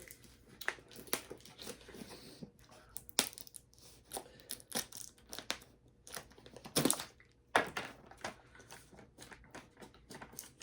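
Snack packet crinkling and tearing as it is opened and handled, in a run of irregular crackles with a few louder rips.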